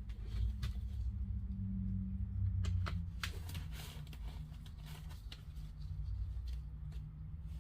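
Scissors snipping fiberglass mesh drywall tape into short pieces: scattered short, sharp clicks over a steady low hum.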